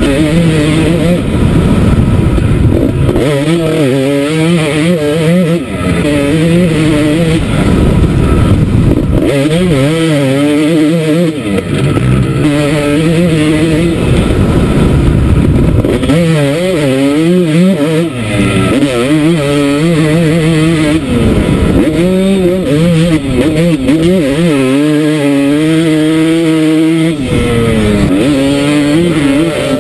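Motocross bike engine revving hard, its pitch climbing and dropping over and over as the throttle is worked and gears change, heard up close from the rider's helmet camera.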